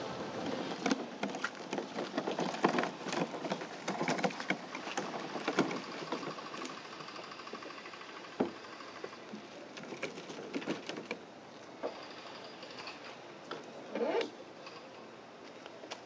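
Crunching and clattering on a gravel-and-rock shore as a loaded canoe on a small two-wheeled cart with baby-carriage wheels is brought to a stop. This is followed by sparser knocks of gear being handled in the canoe, and a brief squeak near the end.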